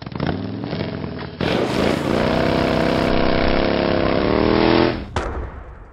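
A motor engine running and revving, fading away about five seconds in, with one short sharp sound just after.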